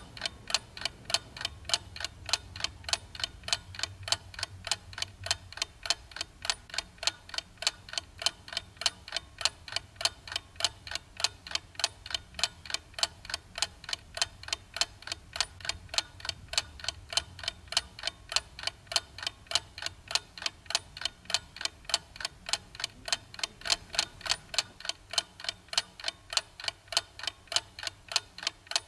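Steady, evenly spaced ticking, about three ticks a second, keeping an unbroken rhythm.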